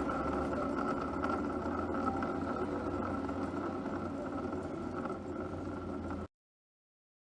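Suzuki Swish 125 scooter engine running steadily at idle, with a steady whine riding over the engine note. The sound cuts off abruptly about six seconds in.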